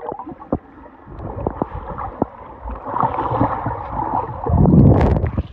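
Underwater sound of a swimming pool picked up by a submerged camera: muffled bubbling and gurgling from a swimmer moving beneath the surface, with scattered knocks. It swells to a loud, deep, muffled rush about four and a half seconds in.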